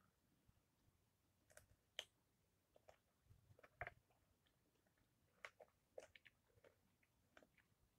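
Faint chewing of a fresh fig, heard as scattered short clicks and mouth noises at irregular intervals.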